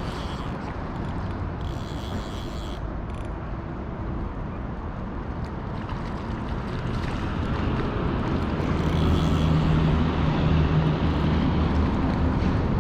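Steady rushing noise of river water, with a low rumble that swells about eight seconds in and stays until near the end.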